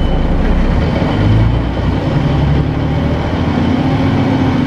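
Articulated city bus's diesel engine and drivetrain heard from inside the passenger cabin while the bus is under way: a loud, steady hum with road noise, its pitch shifting about two seconds in and then holding a higher note.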